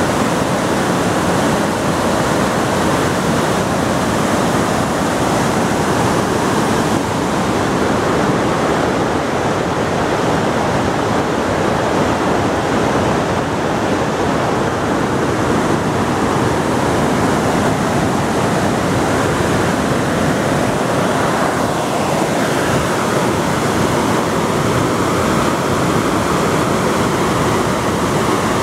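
Rushing mountain creek tumbling over boulders: a loud, steady rush of white water.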